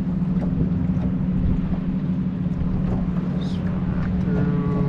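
Steady low hum of a boat's motor running, with rumble beneath it.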